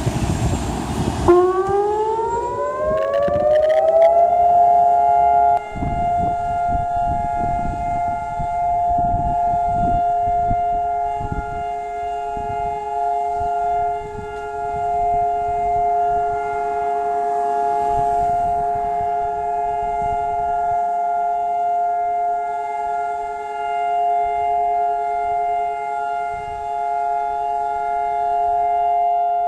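Civil defense siren starting about a second in, rising in pitch for a few seconds, then holding one steady, multi-note tone. This is the memorial siren sounded across Israel on Holocaust Remembrance Day, calling for a standstill.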